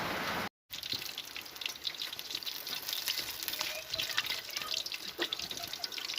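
Crackling and popping of pork knuckle deep-frying in hot oil: many irregular sharp pops. A steady hiss plays for the first half second, then cuts off abruptly.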